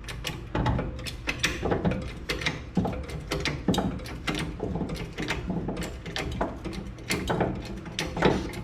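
Floor jack being pumped to raise the front suspension: an irregular run of metallic clicks and clanks, a few a second.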